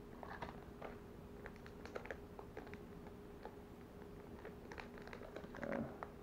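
Faint crinkling and ticking of a clear plastic zip-top bag of soft-plastic grub lures being handled, a scatter of small irregular clicks and rustles.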